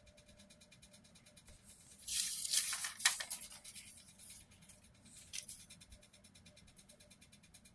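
Paper rustling as a handwritten notebook sheet is handled and the pages are shifted, loudest from about two to three and a half seconds in, with a shorter rustle a little after five seconds.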